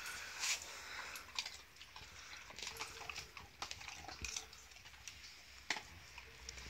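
A beagle chewing a bone, with irregular crunching clicks and cracks and one louder crack late on.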